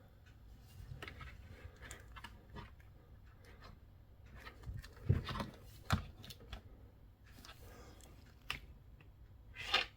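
Handling noise from a plastic action figure being turned and held up close: scattered small clicks, taps and rustles, with a few sharper knocks about halfway through.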